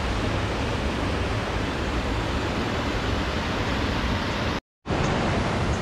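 Waterfall rushing, a steady roar of falling water that cuts out for a moment near the end.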